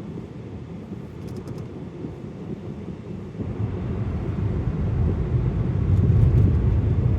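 Low engine and road noise of a 2013 Porsche Cayenne diesel heard inside its cabin while driving, growing louder about three and a half seconds in.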